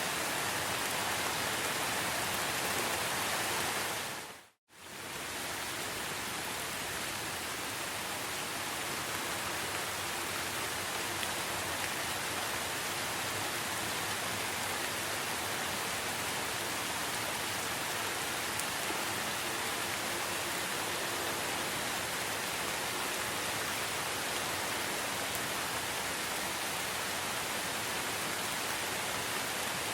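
Steady rain falling, an even hiss of many drops. It dips briefly to silence about four and a half seconds in, then comes straight back.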